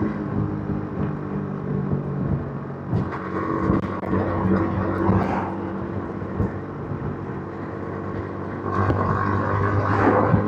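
Yamaha MT-15's 155 cc single-cylinder engine running through its stock exhaust while riding, its note changing pitch a few times with throttle and getting louder near the end.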